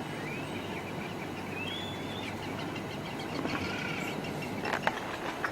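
Birds calling in short whistled notes that glide up and down, over a steady low background rumble, with a few sharp clicks near the end.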